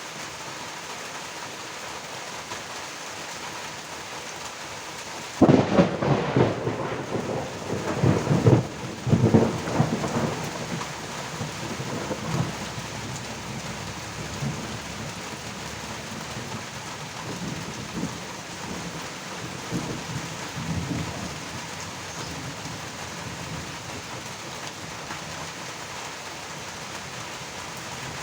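Steady rain with a thunderclap that breaks in suddenly about five seconds in, rumbles loudly in several surges for the next few seconds, then trails off in weaker rolls over about fifteen seconds.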